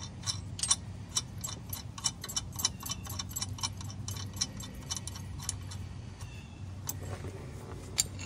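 Ratchet wrench clicking in a quick, uneven run for about five seconds as a nut is turned down on a bolt, then one sharper click near the end, over a steady low hum.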